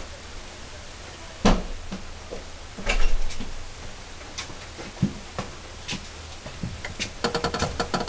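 A few separate knocks and clunks a second or two apart, then a quick run of rapid clicks near the end.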